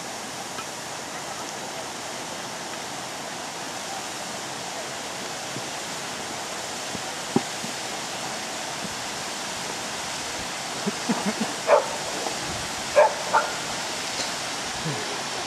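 Main waterfall at Ingleton Falls, water pouring in a steady rush. A few short, sharp calls stand out over it in the second half, loudest about twelve and thirteen seconds in.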